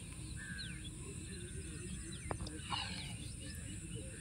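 Open-field ambience: a few short, scattered bird chirps over a low wind rumble on the microphone and a steady high insect hum.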